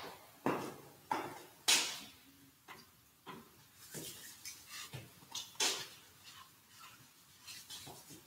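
Altar vessels and items being handled on the altar: an irregular series of light clinks and knocks, the loudest about two seconds in, each ringing on briefly in the stone church.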